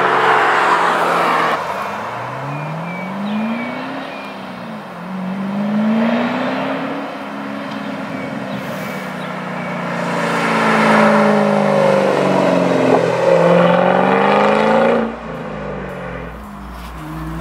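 2010 Shelby GT500's supercharged 5.4-litre V8 through its exhaust, accelerating hard through the gears in drive-bys. The revs climb and drop at each shift, loudest about eleven to fifteen seconds in.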